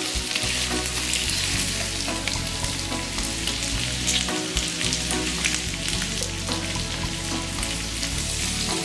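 Slices of Chinese sausage (fa chong) and green beans sizzling in oil in a non-stick wok, a steady hiss, with a few scrapes of a plastic spatula against the pan.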